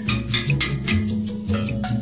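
Steel band music: steel pans playing pitched notes over bass and a quick, even shaker rhythm.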